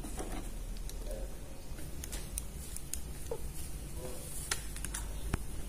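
Faint handling noises of a metal spoon being fetched from a cutlery drawer: a few light scattered clicks and taps, with a duller knock near the end.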